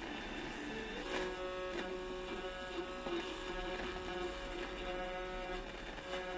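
Sony CFS-15 radio cassette recorder's FM radio being tuned by hand, playing through its own speaker. Held musical tones and hiss shift as the dial moves across stations.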